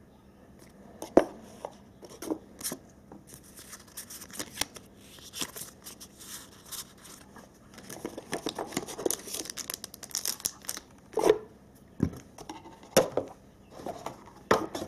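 Hands handling a cardboard trading-card box and its packaging: scattered taps and knocks of cardboard, with rustling in the middle and several sharper knocks near the end.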